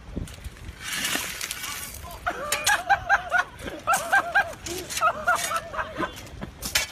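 A person laughing hard in several runs of quick, high-pitched 'ha-ha-ha' bursts, after a short rush of noise about a second in.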